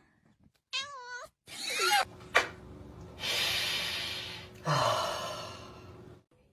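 A cat gives a short meow with a wavering pitch, then makes two long hisses.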